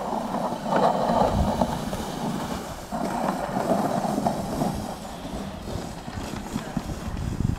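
Red plastic sled sliding down packed snow with a child aboard, a steady scraping rumble that starts sharply with the push-off and holds until it fades near the end.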